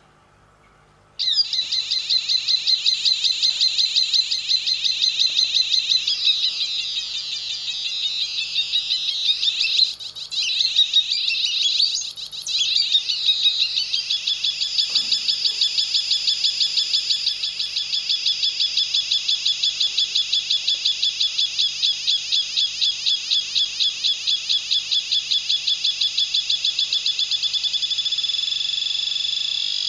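NE555 timer-IC siren circuit giving a high, warbling electronic chirp that pulses about three times a second, starting about a second in. In the middle the pitch and rhythm wander and the sound dips briefly twice, then it settles back into the steady pulsing chirp.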